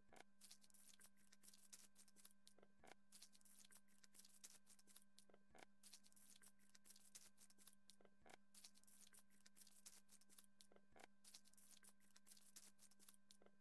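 Near silence: a faint steady hum and hiss, with a soft click repeating about every two and a half seconds.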